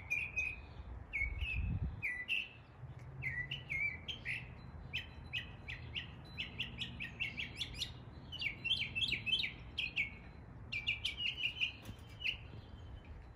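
Northern mockingbird singing a string of varied chirping phrases, each repeated several times in quick succession, in imitation of other local birds' calls. A low rumble runs underneath and swells briefly about two seconds in.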